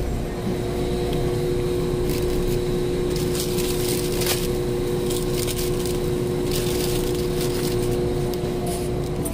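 Steady mechanical hum and rumble of refrigerated glass-door freezer cases, with two held tones, broken by a few short clatters about three and a half, four and a half and six and a half seconds in.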